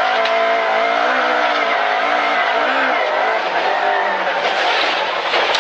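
Rally car engine revving hard, its note rising and falling repeatedly through gear changes, over tyre and gravel noise.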